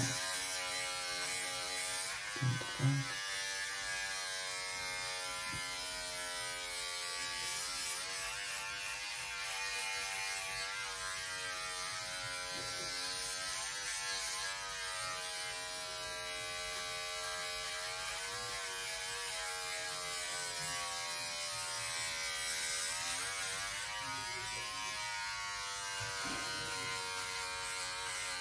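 Braun 6-in-1 electric shaver running with a steady buzz, its pitch wavering slightly, during a quick touch-up shave. Two short low thumps about two and a half seconds in.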